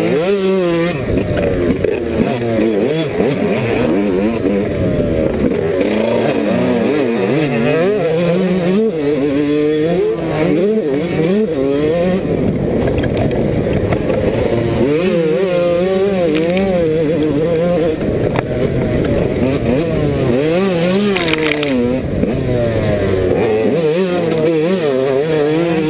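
Yamaha YZ125 single-cylinder two-stroke motocross engine, heard close up from the bike being ridden, its pitch climbing and dropping again and again as the throttle is worked around the track.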